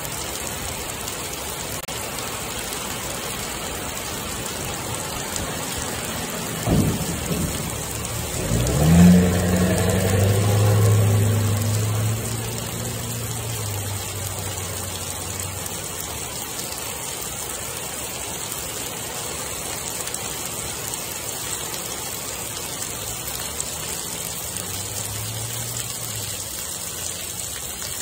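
Heavy rain falling steadily on pavement. About seven seconds in there is a sharp crack of thunder, followed by a low rumble that rolls on for about four seconds, with a fainter rumble near the end.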